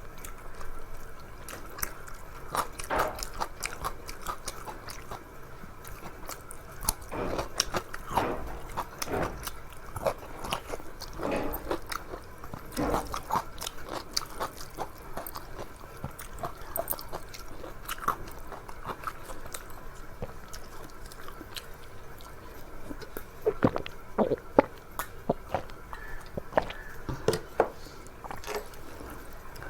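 Close-miked eating of a rice-and-curry meal: irregular chewing and mouth smacking, with short sharp clicks scattered through.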